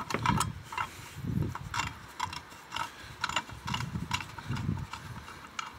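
Irregular metallic clicks and duller knocks as hands handle the spare wheel's hoist cable fitting at the centre of the steel wheel, metal rattling against metal.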